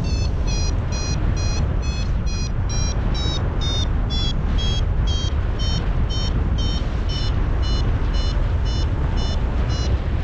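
Paragliding variometer beeping steadily, about two to three short beeps a second. The beeps rise in pitch over the first few seconds and then settle a little lower, which signals the glider is climbing in lift. Wind rushes over the microphone underneath.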